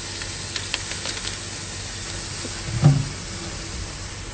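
Curry powder, fried onions and curry leaves sizzling in hot oil and ghee in a pan, with a few light clicks in the first second and one short, louder low knock about three seconds in.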